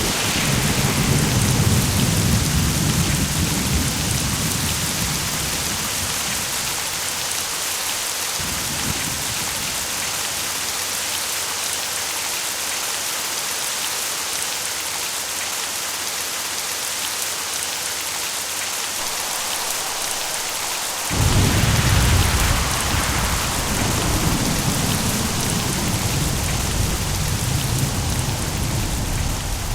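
Steady heavy rain falling, with rolling thunder: a long rumble in the first few seconds, and a louder one that breaks in suddenly about two-thirds of the way through and rolls on.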